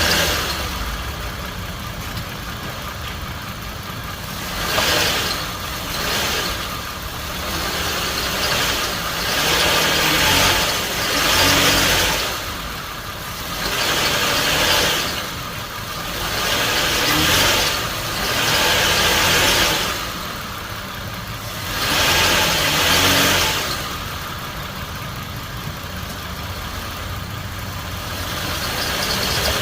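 Toyota Avalon engine idling and being revved repeatedly in gear against the brake, each rev swelling up and dropping back over a second or two, roughly every two seconds, then settling back to idle. This brake-held revving in drive and reverse is a test for worn motor mounts, which the owner most likely takes to be bad.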